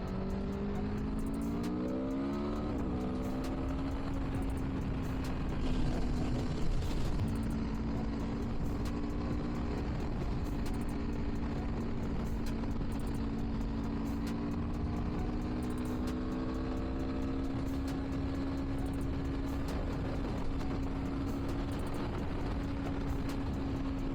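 Aprilia Tuono V4's V4 engine on its stock exhaust, rising in pitch through a few quick pulls in the first three seconds, then running steadily at cruise with its note slowly climbing, over a constant rush of wind and road noise. A brief louder patch breaks the note about six to seven seconds in.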